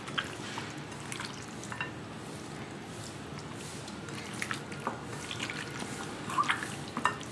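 A hand mixing raw chicken lollipop pieces through a thick, wet spice marinade in a bowl: faint, scattered wet squelches and small clicks, a few sharper ones near the end.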